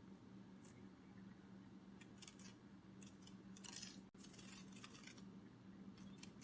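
Faint, quick papery flutters in short bursts, several times over a faint steady low hum: a butterfly wing-flapping sound effect.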